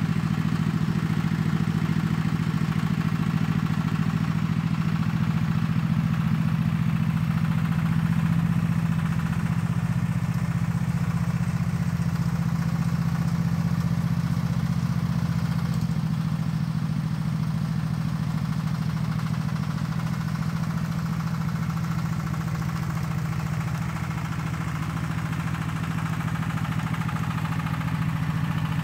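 Engine of a homemade front-loader tractor running steadily at constant speed, dipping slightly in loudness past the middle and coming back near the end.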